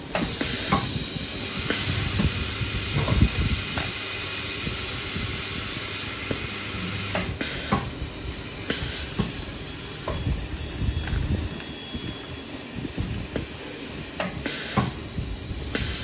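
Pneumatic valve-applicator press fitting degassing valves to coffee bags. It gives three bursts of air hiss from its cylinder: at the start, about midway and near the end. Short clacks and knocks come in between as bags are fed.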